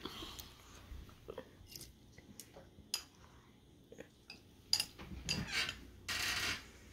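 Someone eating noodles with chopsticks: light clicks of the chopsticks against a ceramic bowl, then a short slurp near the end.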